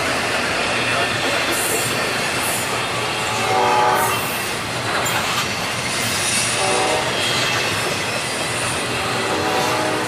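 Double-stack intermodal train's well cars rolling past at speed, a steady rumble and clatter of wheels on rail. A pitched tone rises out of it briefly three times: about four seconds in, about seven seconds in, and near the end.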